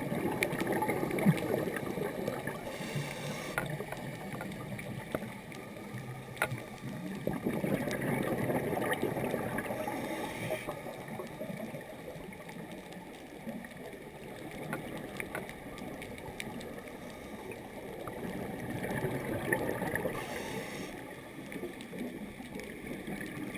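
Muffled underwater sound through a GoPro dive housing: the diver's scuba breathing and exhaled bubbles, swelling and fading about every nine to ten seconds, with scattered faint clicks.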